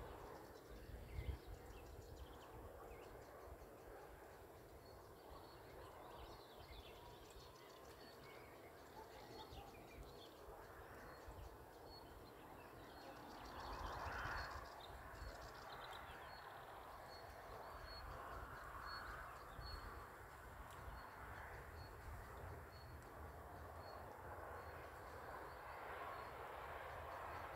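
Faint riverside ambience: birds calling and singing in the distance, with a faint high chirp repeating steadily and a low wind rumble on the phone's microphone.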